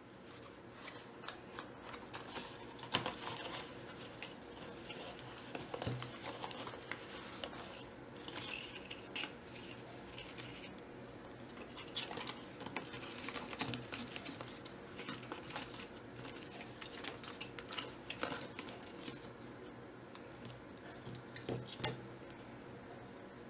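Unboxing handling noise: a cardboard box and its inserts rustling and scraping, with scattered clicks and taps of small parts being lifted out and an aluminium M.2 heatsink being handled. One sharp knock near the end is the loudest.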